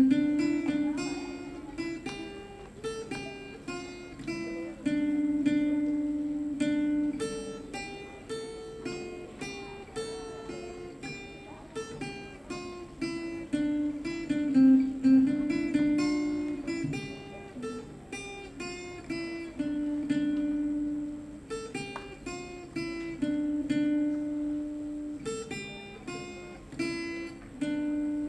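Acoustic guitar playing an instrumental melody of picked notes over a lower line of held notes.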